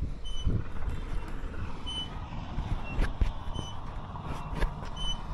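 Knocks and handling noise on the steel frame and linkage of a pole-top high-voltage air-break switch, over a low rumble. A short high-pitched chirp repeats about once a second in the background, alternating between two slightly different pitches.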